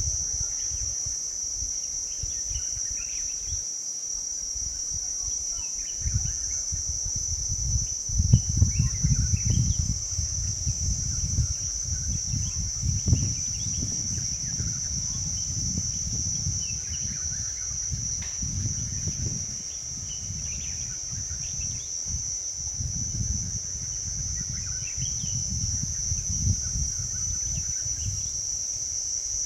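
Steady high-pitched insect drone in forest, with faint scattered chirps. A low rumble swells and fades several times, loudest about eight to thirteen seconds in.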